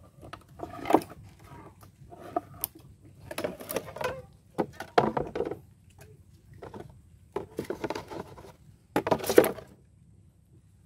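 Irregular knocking, clattering and rustling handling sounds in a wooden boat: about eight short bursts with sharp clicks among them, the loudest near the end.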